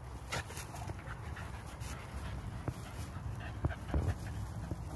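Staffordshire bull terriers panting as they play, with brief rustles of dry hay and a few short knocks.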